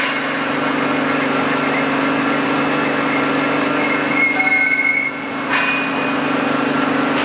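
CNC machining centre running steadily while rough-machining a crankshaft: a constant mechanical hum with a haze of cutting noise. A high thin whine comes in about four seconds in for about a second, and there is a short sharp sound about five and a half seconds in.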